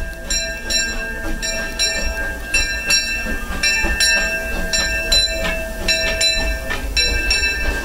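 The C.K. Holliday steam locomotive's bell ringing steadily, about two strokes a second, as the engine pulls slowly into the station over the low rumble of the moving train.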